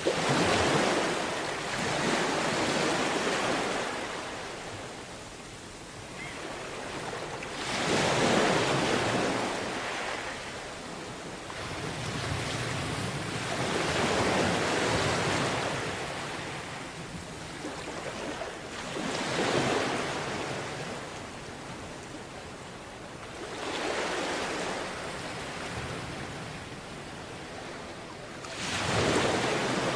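Sea waves breaking on a beach, each one surging up and washing back, about every five to six seconds.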